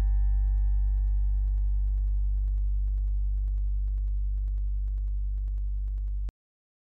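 Closing notes of ambient background music: a deep sustained drone note with piano-like tones dying away over it, fading slowly, then cut off abruptly about six seconds in.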